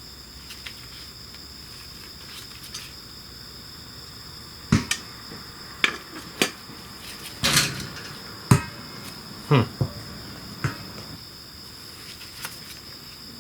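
A cluster of about eight sharp metallic clanks and knocks in the middle stretch, from tools and loose shifter-linkage parts being handled, over a steady high-pitched chirring of insects.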